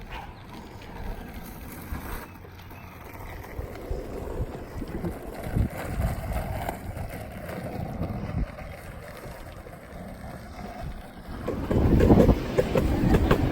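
Skateboard wheels rolling over pavement, with wind buffeting the microphone; the rolling grows louder and rougher, with quick clacks, about eleven and a half seconds in.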